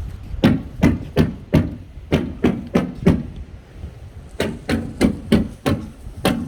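Nails being driven into plywood wall sheathing: sharp strikes about three a second, in two runs with a pause of over a second between them.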